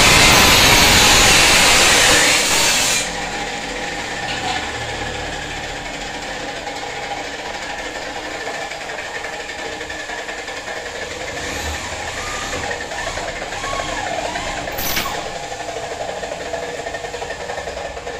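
Workshop noise: a power tool runs loud and harsh for about three seconds and stops abruptly. It leaves a quieter steady background hum with a few faint wavering tones and one sharp click near the end.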